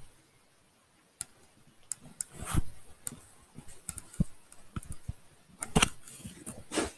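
Handling noise from a laptop being picked up and moved: scattered clicks, knocks and rustling, with a few louder bumps about two and a half seconds in and again near the end.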